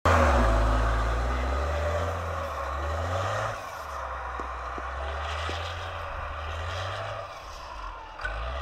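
Iveco rally truck's diesel engine running as the truck drives through snow, loudest as it passes close at the start, then quieter as it pulls away; the low engine note shifts in pitch a few times.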